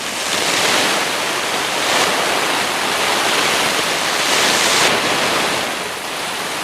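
Garden hose spraying hard onto a silicone-coated polyester (sil-poly) hammock tarp, heard from beneath it as a dense, steady downpour of water with slight surges. The drumming lacks the sharp ping that Dyneema gives.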